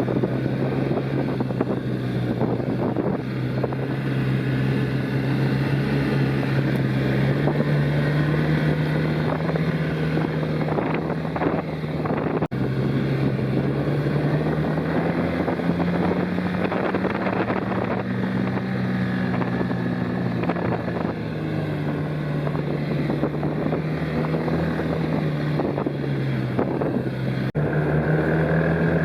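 Arctic Cat Norseman 3000 snowmobile engine running while riding, its pitch rising gently and falling back as speed changes, with wind on the microphone.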